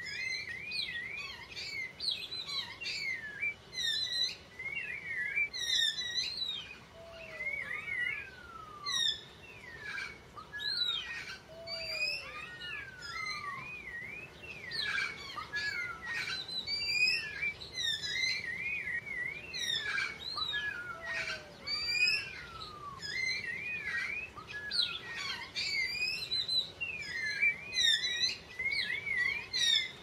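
Chorus of several birds chirping and whistling, their calls overlapping without a break, with a lower, short falling call now and then.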